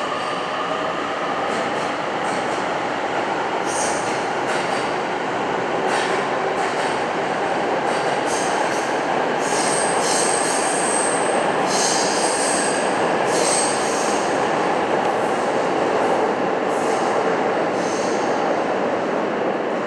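Electric train moving along an underground station platform, with a continuous running noise and short high-pitched wheel squeals that come and go through the middle.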